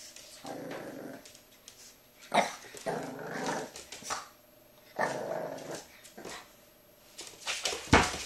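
French Bulldog puppy growling and barking in short bursts. A sharp knock comes near the end.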